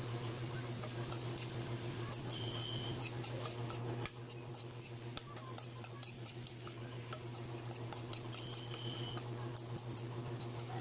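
Metal spoon clicking and scraping against an aluminium wok as vegetables are stirred, a rapid irregular series of ticks over a steady low hum. Twice a short high tone sounds, near the start and near the end.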